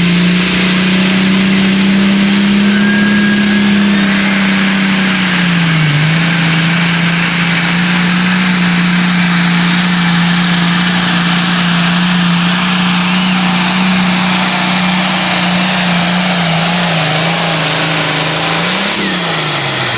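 Hot farm class pulling tractor's turbocharged diesel engine at full throttle under load during a pull, with a high turbo whistle climbing over the first few seconds. The engine note holds steady, dips briefly a few times, then falls away near the end as the tractor comes off the throttle.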